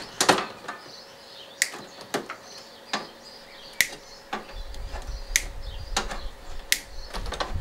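Sharp clicks and rattles of plastic connectors and wiring as a washing machine's wiring loom and control board are worked loose by hand with pliers. A low rumble joins about halfway through.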